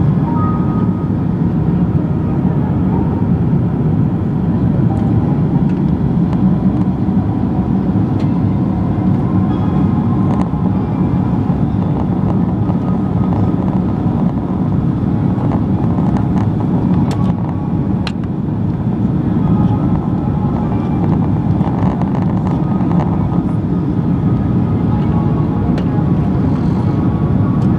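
Steady cabin noise inside a Boeing 767-300 in flight: the deep, even rumble of engines and airflow, unbroken throughout.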